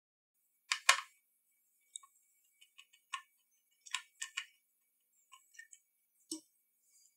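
Light, irregular clicks and ticks of a small screwdriver working the chassis screws in the plastic case of a Sony WM-F63 Sports Walkman, with two sharper clicks just before a second in.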